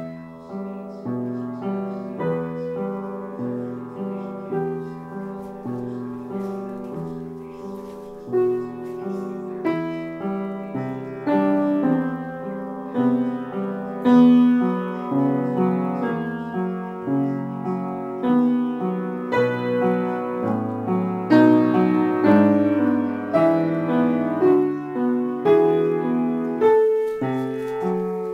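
Piano music: a flowing, even run of struck notes with a steady rhythm.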